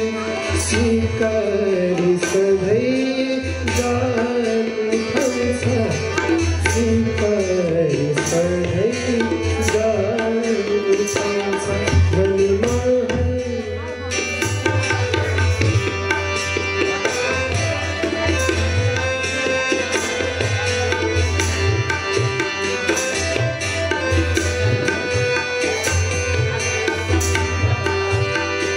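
Live Nepali song with tabla keeping a steady beat under harmonium. A sung melody carries about the first half, then gives way to an instrumental passage of held harmonium notes over the tabla.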